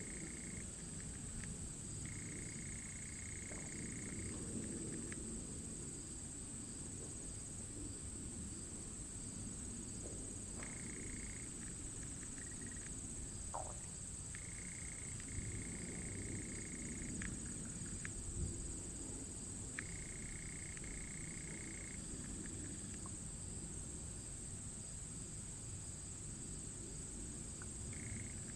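Steady high-pitched insect chorus, such as crickets, over a low rumble of background noise. A flat mid-pitched tone comes and goes several times, each lasting a second or two, with a few faint clicks.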